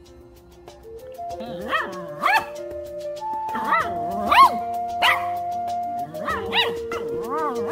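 Small brown poodle barking in a string of short, high yips, about ten of them starting a little over a second in, demand-barking for food. Background music with long held notes plays under it.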